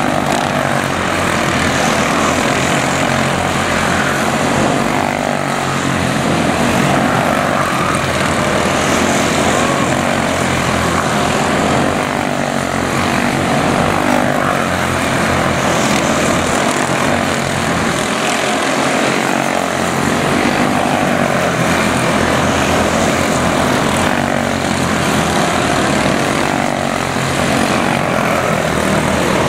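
A pack of quarter midget race cars with Briggs & Stratton Animal single-cylinder four-stroke engines, running hard around a small oval. The engines blend into a loud, continuous buzzing drone whose pitch wavers as the cars lap.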